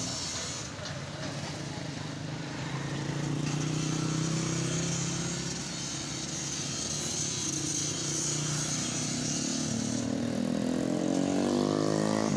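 A motor vehicle engine running steadily. In the last couple of seconds its pitch rises as it revs or speeds up.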